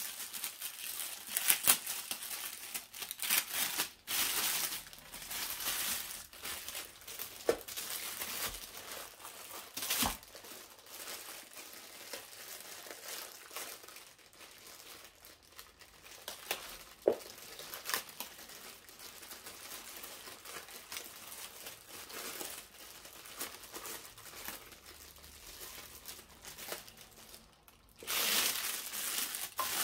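Packaging of a computer speaker set being unwrapped and handled: crinkling and rustling, with a few sharp clicks or knocks. It is busiest in the first several seconds and quieter after that.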